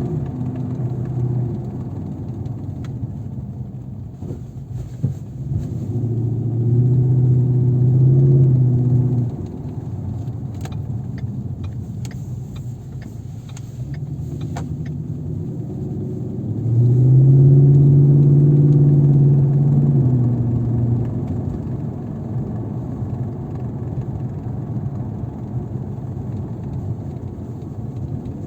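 Car engine running with a steady drone that swells louder twice, for about three seconds each time, with a handful of sharp clicks in between.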